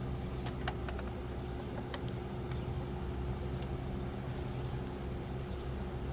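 Two electric fans running with a steady hum and a faint steady whine, powered from a portable battery power station. A few light clicks in the first two seconds.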